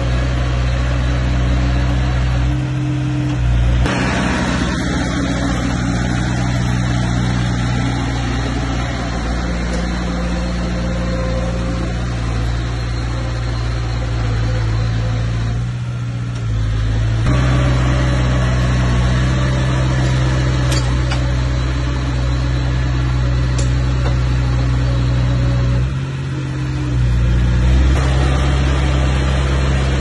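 Bulldozer's diesel engine running under load, a steady low drone that changes pitch and level as the load comes and goes. It dips about halfway through and again near the end, coming back up louder each time.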